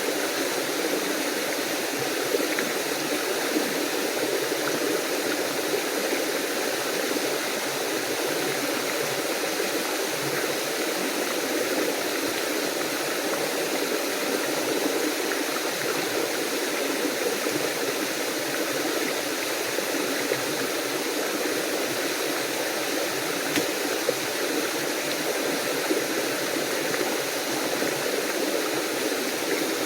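Small waterfall and stream rushing steadily, a constant splashing wash of water with tiny irregular splashes.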